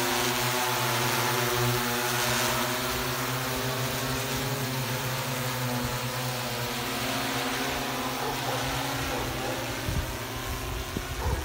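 Rotors of a large multirotor agricultural spray drone humming steadily as it hovers and flies low over the field: an even, multi-toned buzzing hum that eases slightly in the last couple of seconds.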